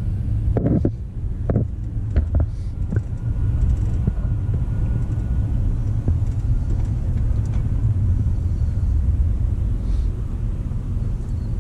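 Car cabin at freeway speed: a steady low rumble of engine and road noise. In the first three seconds there are a few short knocks from the camera being moved around by hand.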